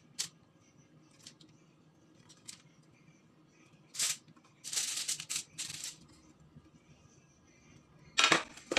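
Aluminium foil crinkling in several short bursts as it is folded and pressed around a baking tray, with a cluster of rustles about halfway through and the loudest crinkle near the end.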